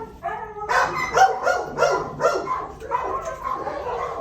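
Dogs barking in a kennel: a fast, steady run of barks, about three or four a second, starting just under a second in.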